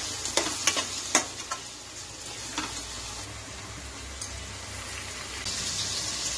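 Steel spatula scraping and stirring thick onion-tomato masala in a nonstick kadai, several quick scrapes in the first second and a half, over a steady sizzle of the masala frying in oil. The sizzle grows louder near the end.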